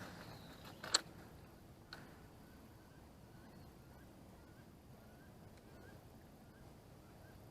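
A sharp click about a second in, then a faint short call repeated about twice a second, typical of a small animal calling.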